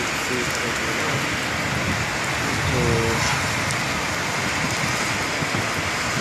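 Heavy rain falling steadily: a continuous, even hiss. A short pitched sound cuts through it about halfway through.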